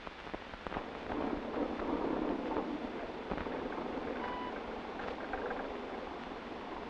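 Steady rushing noise that swells about a second in, with a few faint clicks and a brief faint tone about four seconds in.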